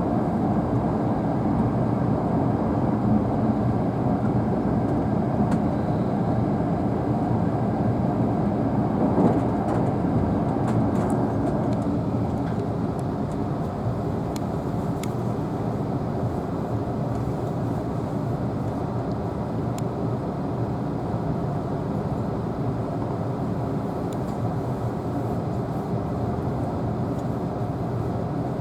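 Cabin running noise of a Tobu N100 series Spacia X electric train under way: a steady low rumble that eases slightly about twelve seconds in, with a few faint ticks.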